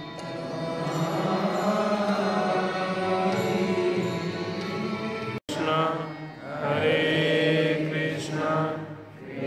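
Devotional Hindu chanting with musical accompaniment over the hall's loudspeakers. The sound cuts out for an instant about five and a half seconds in, then the chanting carries on with a more rising-and-falling melody.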